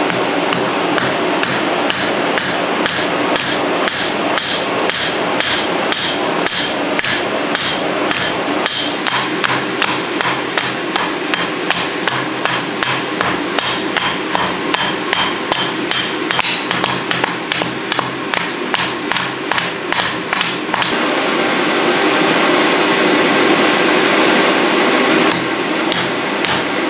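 Hammer blows on a white-hot iron anvil block being forge-welded: a fast, even run of ringing metal-on-metal strikes. About 21 seconds in the blows stop and a steady rushing noise is left, and the strikes start again near the end.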